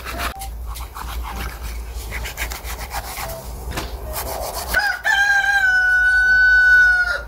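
A knife scrapes and slices through a raw chicken carcass on a plastic cutting board. About five seconds in, a native Korean rooster crows one long, loud call, held steady for about two seconds.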